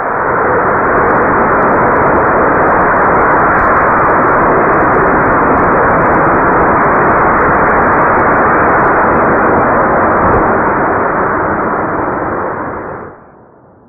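Homemade 500 g r-candy (potassium nitrate and sugar) rocket motor firing in a static test: a loud, steady rushing noise of the exhaust that holds for about twelve seconds, then fades and cuts off near the end as the propellant burns out.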